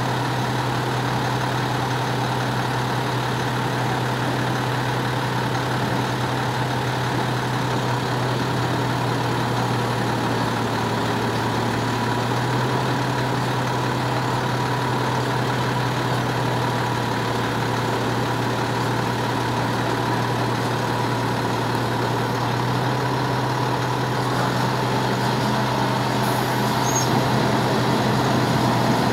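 Fire truck's diesel engine running steadily with a low, even hum while it drives the aerial ladder's hydraulics as the ladder moves.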